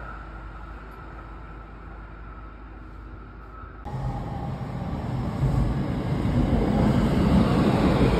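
Tsukuba Express electric train faintly approaching with a low rumble; after an abrupt cut about four seconds in, another Tsukuba Express train pulls into a station platform, its rumble growing steadily louder.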